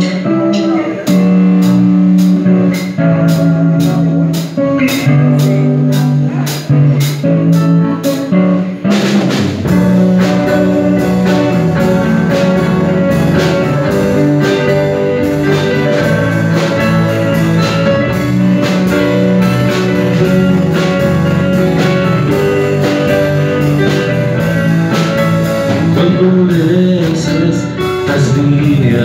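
Live folk-rock band playing a song on electric and acoustic guitars, bass guitar and keyboard over a steady ticking beat. About nine seconds in the bass and the full band come in and the sound fills out.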